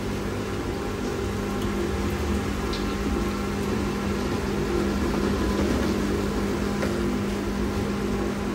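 Steady hum of running kitchen machinery, a constant low tone over an even whir, with a few faint light clicks.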